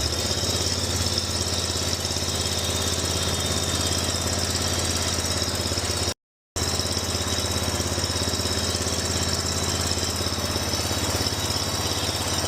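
John Deere Z930M zero-turn mower engine running with the throttle raised a little. Its speed steps up at the start and then holds steady. This is a test of whether it keeps running above part throttle now that a clogged fuel filter, suspected of starving it of fuel, has been replaced. The sound cuts out briefly about six seconds in.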